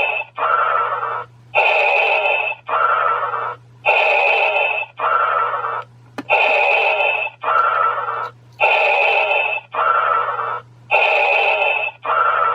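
Darth Vader helmet toy playing its electronic breathing effect through a small speaker: a hissy inhale and a lower exhale repeat in a steady loop, one breath about every two and a half seconds, over a low steady hum. There is a single click about six seconds in.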